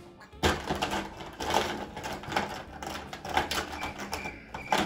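Markers clattering and clicking against each other as a hand rummages through them in a bowl, in quick irregular rattles.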